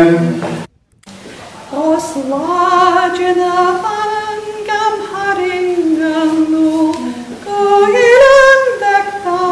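A woman singing unaccompanied: a slow melody of long held notes with some vibrato, beginning after a brief break about a second in.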